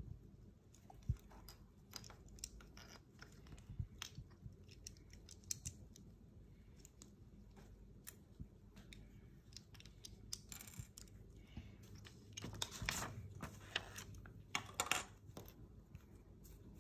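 Small plastic Woolworths Bricks toy pieces clicking and tapping as they are handled, pressed together and set down on a hard tabletop, in scattered irregular clicks with a busier, louder stretch near the end.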